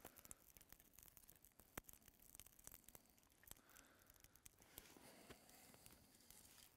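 Near silence with faint crackles, rustles and a few sharper snaps from dry wood shavings and split kindling as a small fire is being started and fed.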